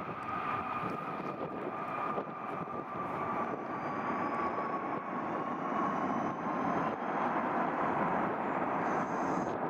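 Boeing 787-8 Dreamliner jet engines on the landing roll: a steady engine whine slowly falling in pitch over a broad rushing noise. About seven seconds in, a broader, louder roar builds up as reverse thrust is applied on the wet runway.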